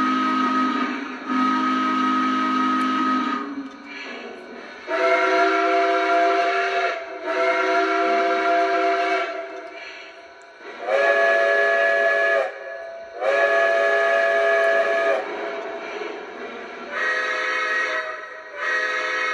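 Lionel Legacy Santa Fe 2926 model locomotive's sound system playing steam whistles: several different whistle tones, each sounded in two long blasts, one pair after another.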